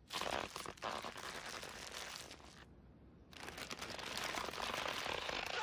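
Cartoon sound effect of dry eyelids blinking slowly: a long, dry crackling as the eyes close, a short pause, then a second crackling as they open again.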